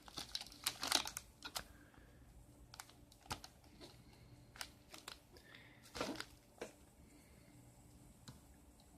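Scattered light clicks and taps of small plastic gadgets being handled, a dozen or so irregular knocks: a flat micro-USB cable's connectors being plugged into a power bank and a tablet.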